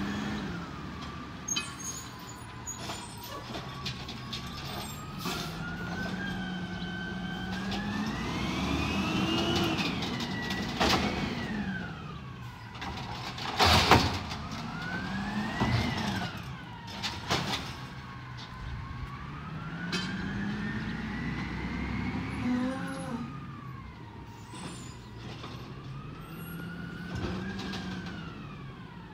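A Peterbilt 320 garbage truck's engine revving up and falling back several times as it powers the hydraulics of its Amrep automated side-loader arm through cart pickups. Metallic clanks come through, with one loud bang about halfway as a cart is tipped and shaken out into the hopper.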